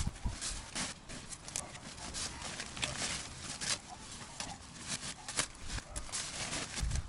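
Horseradish leaves and stalks rustling and crackling as they are handled and pulled from the roots, in irregular short bursts.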